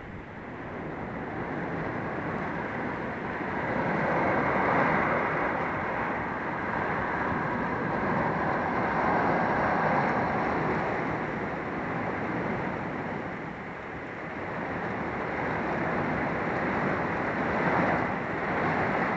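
Storm wind gusting with rain, an even rushing noise that swells about four seconds in, eases a little past the middle and builds again.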